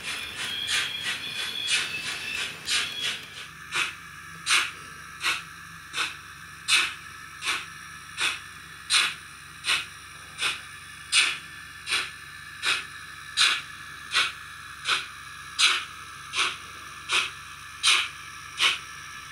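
ESU LokSound V5 sound decoder in a Roco HO-scale BR 18 201 steam locomotive, playing steam-engine sound through the model's small speaker. Fast beats for the first few seconds give way to slow, even exhaust chuffs, about one and a third a second, over a steady hiss as the locomotive rolls slowly.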